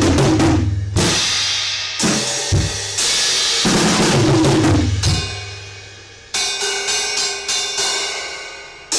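Drum kit being played, with bass drum and snare hits under ringing cymbal crashes, including a new Paiste PSTX 16-inch Swiss thin crash. Heavy strikes come about once a second at first; in the last few seconds they give way to a quicker run of lighter cymbal strokes that ring and fade.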